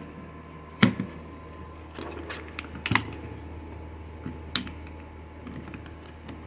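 Metal wire latches on a Ryobi plastic toolbox lid being snapped shut: a few sharp clicks and clacks of metal on hard plastic, the loudest about one and three seconds in and another about four and a half seconds in.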